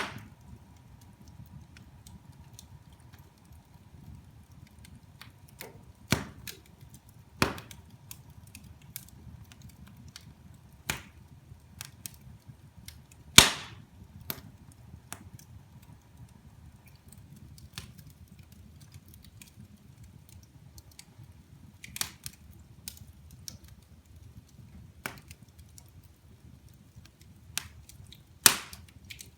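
Wood fire burning in a fireplace, crackling with sharp, irregular pops every few seconds, the loudest about halfway through, over a faint steady low background.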